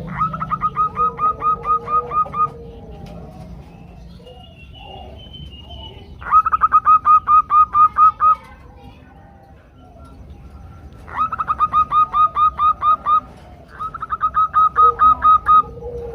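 Female zebra doves calling to males, a lure call used to get males to sing: four bursts of rapid, evenly spaced short staccato notes, each burst about two seconds long, with softer low cooing notes between them.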